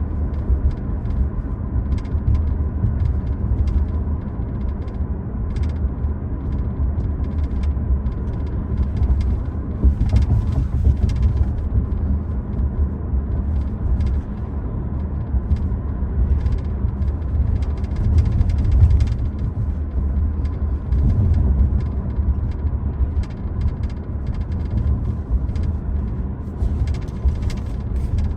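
Inside the cabin of a 2025 Toyota Prius Limited on the move: a steady low road rumble with occasional faint clicks.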